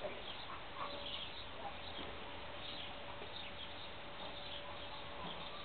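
Steady background hiss with a faint constant hum and scattered faint high chirps.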